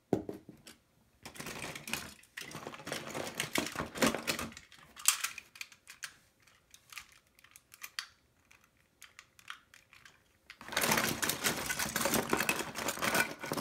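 Loose plastic toy parts, Lego Bionicle pieces among them, clattering and clicking against each other and the plastic tub as a hand rummages through them. There is a busy stretch of rattling in the first few seconds, scattered clicks in the middle, and louder, continuous rattling over the last few seconds.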